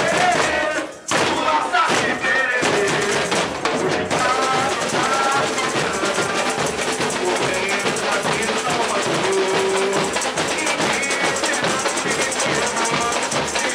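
Samba percussion band playing a samba with a crowd of voices singing along. The sound drops out briefly about a second in, then drums and singing carry on.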